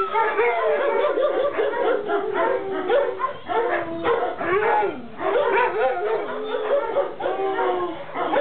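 Many kennelled dogs barking, yipping and howling at once, a continuous chorus with long howls that rise and fall in pitch under the barks.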